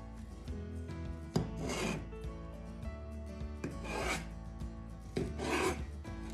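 Kitchen knife sawing through baked cinnamon rolls, in three strokes about a second and a half apart.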